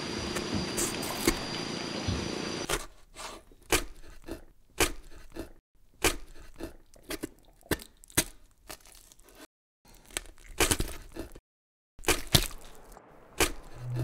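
A steady hiss that cuts off suddenly a little under three seconds in, then a string of sharp cracks and crunches at irregular intervals, broken by a couple of short dead-silent gaps.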